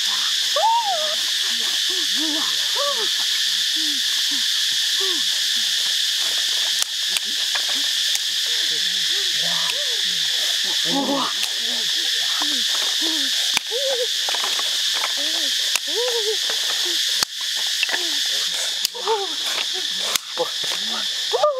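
Forest ambience: a steady high insect drone under many short, overlapping rising-and-falling animal calls. A few sharp knocks come in the second half.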